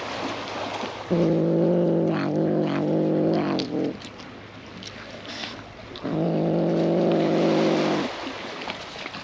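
Brown tabby cat growling over a fish it is guarding: two long, low, steady growls of about two to three seconds each, with clicks of chewing between them.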